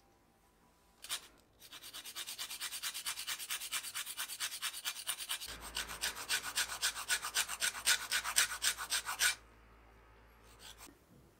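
Lemon rind rasped quickly up and down a flat metal grater standing in a stainless steel bowl: zesting a lemon, an even run of scraping strokes at about five a second that stops abruptly near the end. A single knock comes just before the strokes begin.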